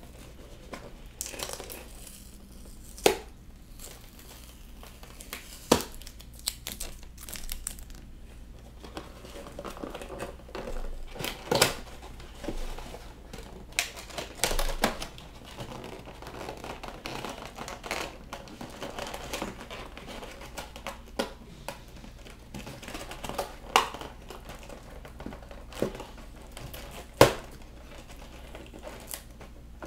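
Action figure packaging, cardboard box and plastic, being handled and opened: rustling and crinkling with scattered sharp clicks and snaps, about a dozen through the stretch.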